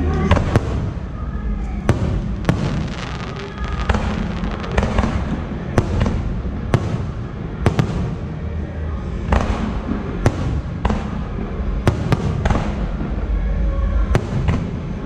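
Aerial firework shells bursting overhead: a string of sharp bangs at irregular intervals, roughly one or two a second, over a continuous low rumble of launches and echoes.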